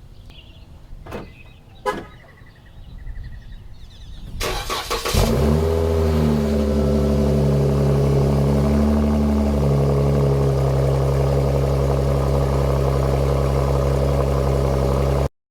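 Jeep Grand Cherokee (WK2) engine cold-started. Two clicks come first, then the starter cranks about four or five seconds in and the engine catches with a brief flare. It settles into a steady idle.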